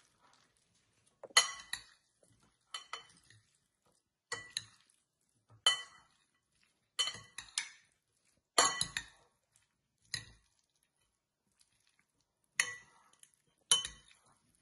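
Two metal spoons clinking and scraping against a glass mixing bowl as a rice salad is tossed, in about nine short bursts, roughly one every second and a half.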